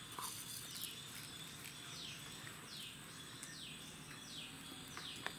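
A bird calling with a repeated high note that falls in pitch, about one note every three-quarters of a second, starting about two seconds in, over a faint steady outdoor background hiss.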